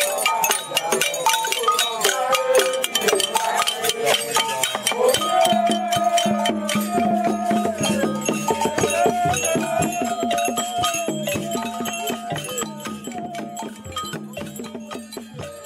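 Traditional West African music recorded in Benin: rattles keep a dense, fast rhythm under a wavering pitched melody. It fades gradually over the last several seconds.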